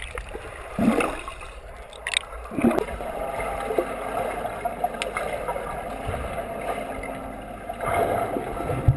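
Swimming heard underwater from a camera in its waterproof housing: muffled bubbling and churning water from a swimmer's strokes, with louder surges about a second in, near three seconds and near the end.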